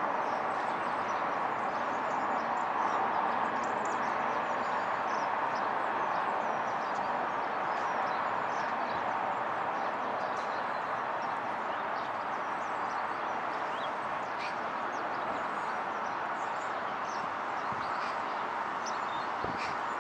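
Jet engine noise of a Boeing 767-300ER airliner on approach, a steady rushing sound that slowly fades as the aircraft flies away. Faint bird chirps sound over it.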